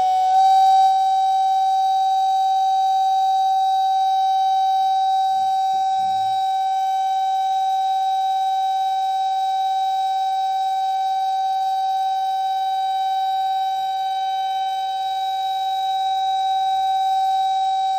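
Metal Chladni plate driven by a tone generator, sounding one steady high-pitched tone with overtones and no change in pitch.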